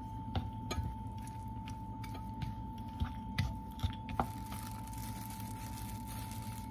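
A wooden spatula knocking and scraping against a glass mixing bowl while stirring a thick rice mixture: a scatter of light taps over the first four seconds or so. Under it runs a steady low hum with a faint high tone.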